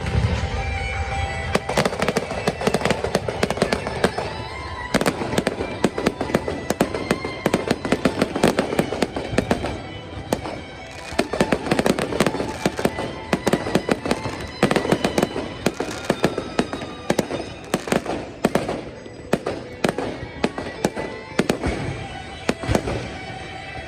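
A fireworks display: a dense, continuous stream of rapid pops and crackling bangs.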